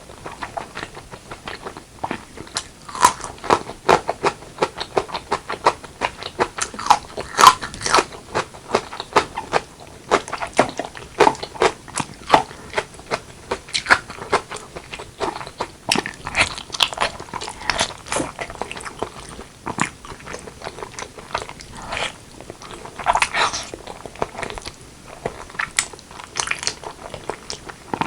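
Close-miked chewing and biting of braised pork leg and white rice: a dense, irregular run of sharp mouth clicks and crunches, louder in clusters every few seconds.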